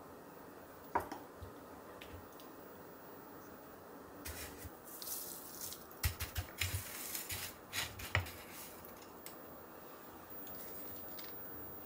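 Hands pressing a pork cutlet into a tray of dry panko breadcrumbs, a crisp crunching rustle in bursts that is loudest about halfway through. A single sharp tap comes about a second in.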